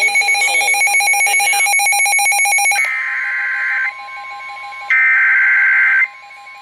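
Emergency Alert System alert opening: a rapidly pulsing electronic tone for almost three seconds, then two bursts of the EAS SAME header data tones. Each burst is a harsh digital screech about a second long, with about a second's pause between them.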